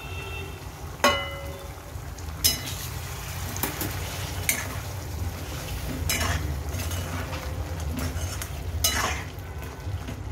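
Metal ladle stirring crab curry in a stainless steel pan, with six or seven sharp metal clinks against the pan; the one about a second in rings briefly. A steady low hum runs underneath.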